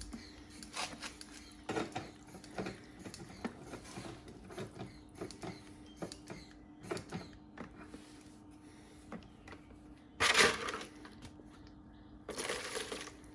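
A hand-operated Mityvac vacuum bleeder pump being squeezed over and over, clicking irregularly, as it sucks stale fuel out of the mower's tank. Two short hissing bursts come near the end.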